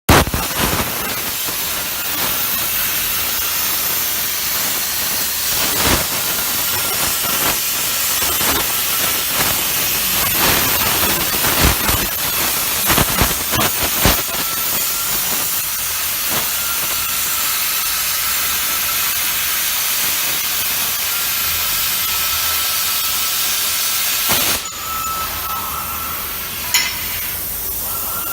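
BLUWELD CUT 60 plasma cutter hissing steadily as its arc cuts through 20 mm thick metal, with a thin whistling tone over the hiss and sharp crackles, most of them in the middle. About 25 s in the sound changes abruptly and drops slightly.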